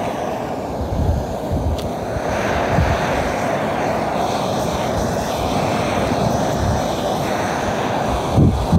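Steady roar of a portable gas camping-stove burner, with gusts of wind buffeting the microphone as irregular low rumbles.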